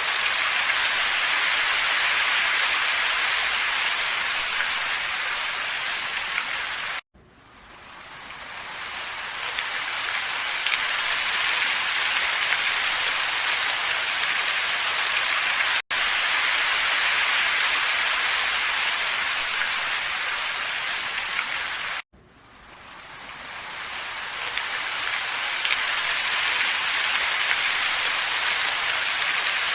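Steady rushing hiss of a wind ambience track. It cuts out abruptly twice and fades back in over a few seconds each time, with a brief dropout in between.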